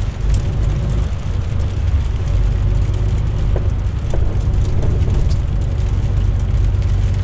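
DAF truck's diesel engine running steadily under way, with a low drone and road noise, heard inside the cab on a snow-covered road.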